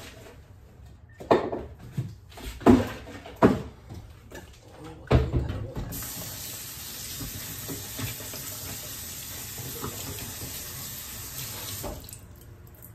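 A few sharp knocks and clunks, then a kitchen tap runs steadily for about six seconds and is shut off near the end.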